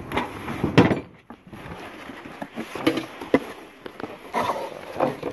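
Cardboard box being handled and opened, then hands rummaging through crumpled newspaper packing with irregular rustles and crinkles, and a thump a little under a second in.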